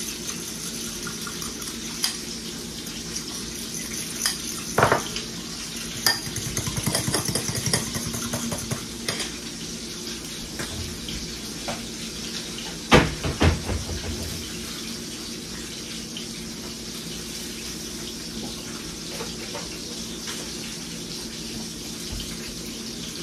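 Fish frying in oil, a steady sizzle, over a low refrigerator hum. Dishes, cutlery and a pan clink and clatter now and then: a quick run of light tapping around six to eight seconds in, and a couple of louder knocks about thirteen seconds in.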